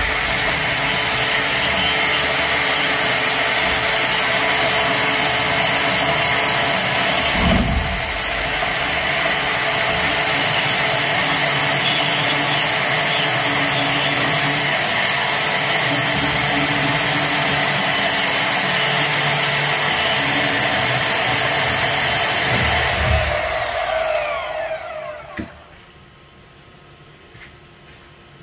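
DeWalt portable band saw running under load, its blade cutting through a rusted black-iron pipe fitting with a steady whine. About 23 seconds in the trigger is released and the motor winds down with a falling whine, followed by a couple of clicks.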